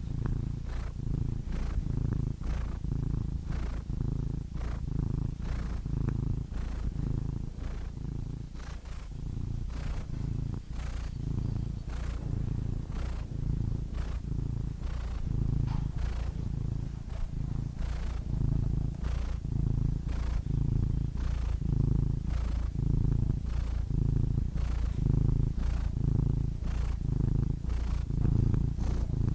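Domestic cat purring steadily, the low purr swelling and easing about once a second with its breathing.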